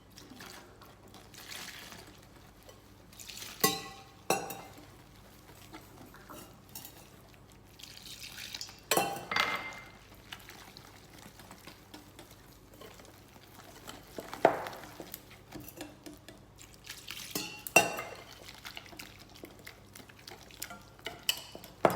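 A kitchen utensil stirring flour-and-milk batter in a bowl, with scattered clinks and knocks against the bowl every few seconds.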